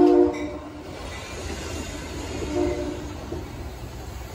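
Metra bilevel commuter cars rolling slowly along the platform as the train comes to a stop: a steady low rumble, with a short pitched sound about two and a half seconds in.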